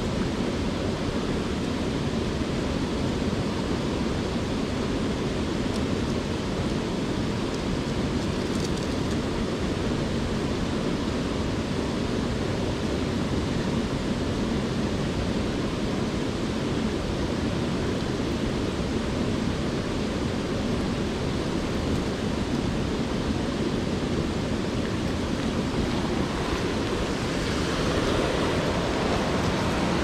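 Mountain stream water rushing past over rocks: a constant wash of flowing water that grows a little louder near the end.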